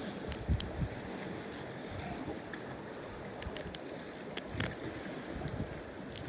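Steady surf and wind noise on the microphone, broken by a few sharp clicks as steel tongs knock against goose barnacle shells on the rock.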